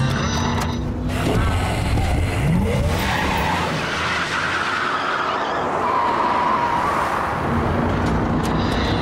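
Car engine revving and tyres skidding and squealing, with a sustained tyre squeal about six seconds in.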